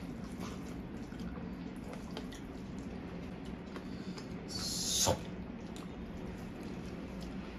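Close-up eating sounds of hand-eaten rice: small wet clicks and smacks of chewing and of fingers squishing rice on steel plates. About five seconds in, a short hissing sound swells and ends in a sharp click.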